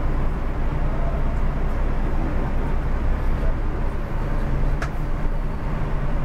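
Scania K360 coach's diesel engine running at a low, steady drone as the bus moves slowly, heard from inside the cab, with one short sharp high click nearly five seconds in.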